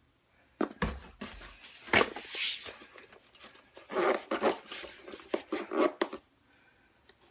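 A boxed tool set being handled and unpacked: irregular clicks and knocks with rustling of packaging, the loudest knock about two seconds in.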